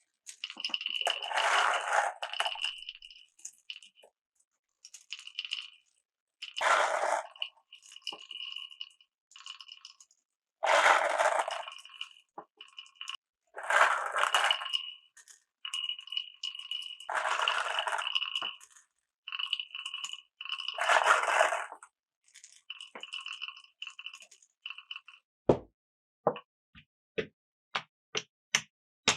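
Glass marbles rolling and rattling through a Cuboro wooden block marble run, in six runs of a few seconds each, with a steady high ring between them. Over the last few seconds come a string of sharp separate clicks of marbles striking.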